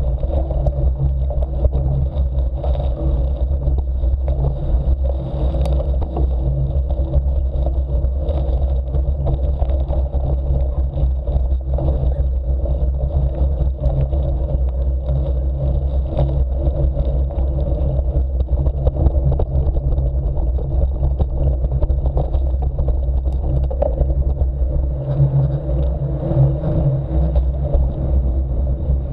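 Mountain bike rolling over a gravel track, heard through a bike-mounted camera: a steady rumble of the knobby tyres and the frame's vibration, with small rattles and scrapes of grit throughout.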